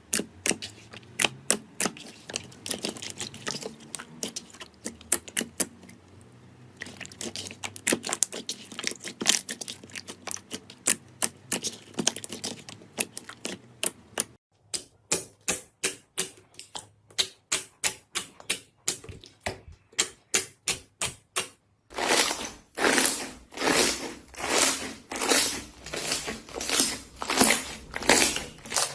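Slime being pressed and poked, giving fast runs of sharp clicking pops. About three quarters of the way through the sound changes to slower, fuller squelches at roughly two a second.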